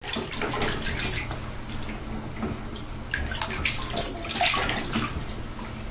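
Shallow water splashing in a plastic infant bathtub as a baby kicks and moves, a string of short splashes with the loudest about four seconds in.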